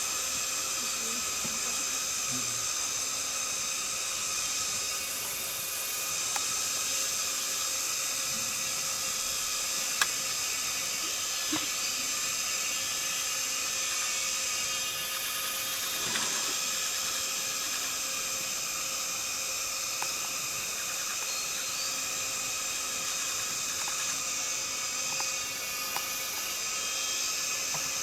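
A steady cicada chorus, a dense high buzzing drone with no break, with a few short clicks, the sharpest about ten seconds in.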